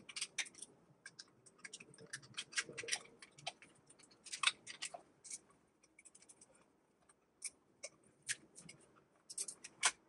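Hand screwdriver driving screws through a light switch plate into the wall box: irregular small clicks and scrapes, several a second, with short pauses between.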